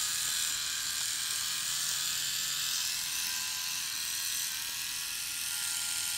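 Philips AquaTouch electric shaver, partly stripped down, its motor running steadily with a high, even buzz: the shaver is back to working at full power after having failed.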